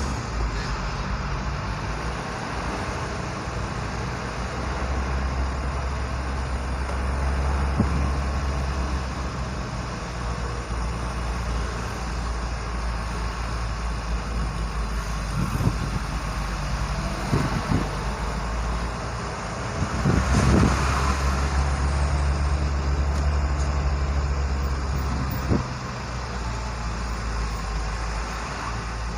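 Delivery truck's engine running with a steady low drone in slow road traffic, heard from the cab. There are a few short knocks, and a louder burst of noise comes about two-thirds of the way through.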